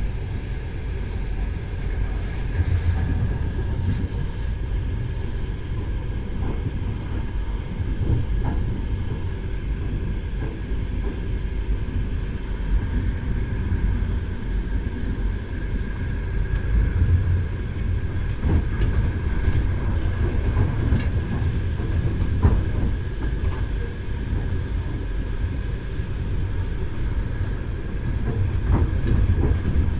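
Moving train: a steady low rumble with the knocking of its wheels on the rails, short knocks scattered through it.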